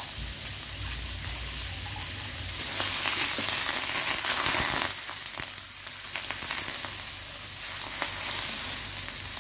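Labang fish fat sizzling in a dry wok as it renders down into its own oil. It is stirred with a wooden spatula that knocks and scrapes against the metal. The sizzle swells louder for a couple of seconds in the middle.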